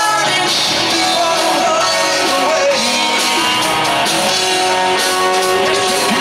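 Live rock band playing loudly, with electric guitars, drums and keyboards, recorded from within the audience.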